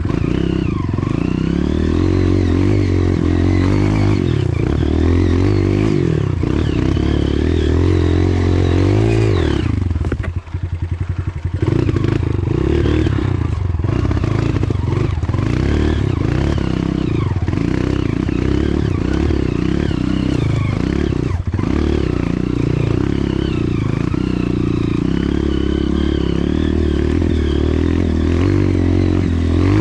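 Off-road trail motorcycle engine running under constantly changing throttle, its pitch rising and falling, with clattering and scraping from the bike over rough trail. It falls away briefly about ten seconds in, then picks back up.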